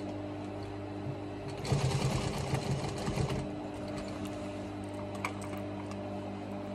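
Industrial Singer sewing machine, its electric motor humming steadily, with a short run of rapid stitching about two seconds in as the needle sews a leather appliqué.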